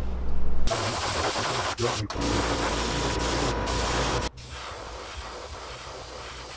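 Airbrush spraying paint in a steady hiss, laying a base coat on a crankbait. The hiss starts under a second in, breaks off briefly a couple of times, and is quieter for the last couple of seconds.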